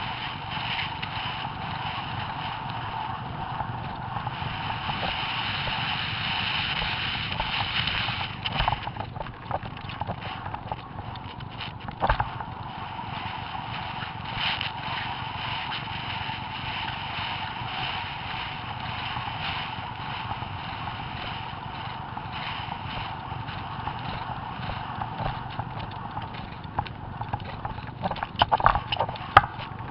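Horse galloping cross-country, heard from the rider: steady wind rush over the microphone with the beat of hooves on the dirt track. A sharp knock about twelve seconds in and a cluster of louder thuds near the end.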